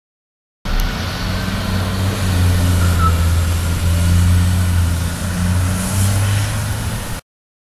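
Garbage truck's engine running as the truck drives through an intersection: a steady low drone that cuts off suddenly near the end.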